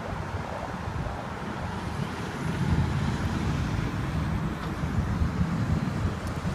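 Low, uneven rumble of wind on the microphone, with a steady background of passing traffic.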